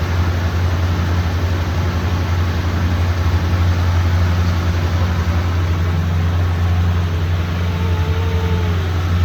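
Motorboat engine running at a steady pace, a loud, even low drone.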